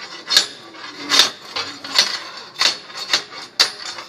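Metal knocking on metal, about six or seven sharp clinks at uneven intervals, like a hammer or tool tapping steel.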